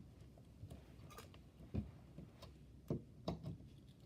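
A few scattered light clicks and knocks of things being handled, about four or five in all.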